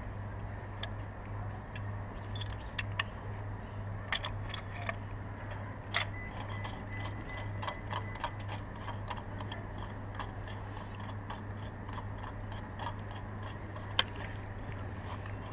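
Irregular light clicks and ticks over a steady low hum, with one sharper click near the end.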